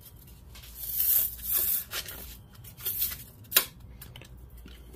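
A roll of P220 sandpaper being handled and unrolled: a few short scraping rustles of the paper, then a sharp click about three and a half seconds in.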